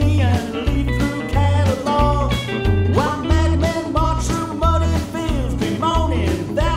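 Small band playing rock and roll: plucked double bass walking steadily underneath, with drums, guitars and a male singer.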